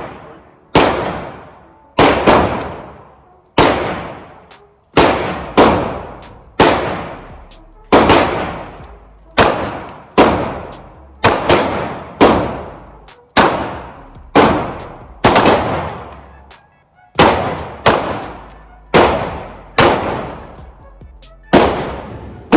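A run of pistol shots at a shooting range, about thirty in all, coming one to two a second at uneven spacing. Each shot is a sharp crack followed by a long echoing decay.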